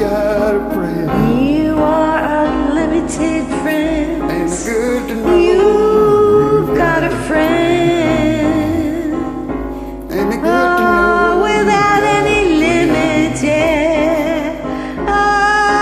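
Karaoke singing over a piano backing track, with long wavering held notes and vocal runs.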